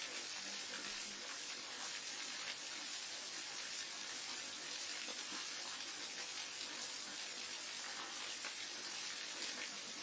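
Waterfall: a steady, unbroken rush of falling water, an even hiss that is strongest in the treble.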